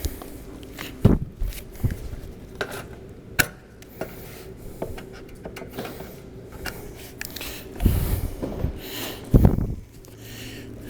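Handling noises: scattered clicks and knocks, with two heavier thumps in the last few seconds, over a faint steady hum.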